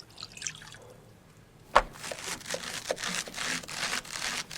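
Water splashing and dripping over a raw whole chicken. A single sharp knock a little under two seconds in, then a run of short splashy bursts.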